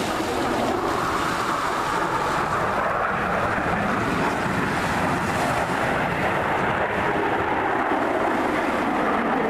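Formation of Aermacchi MB-339 jet trainers flying past, with the steady, unbroken rushing noise of their turbojet engines.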